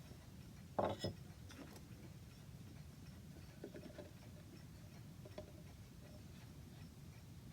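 Hand chisel work on lime wood: two sharp knocks about a second in, then a few fainter clicks, over a low steady hum.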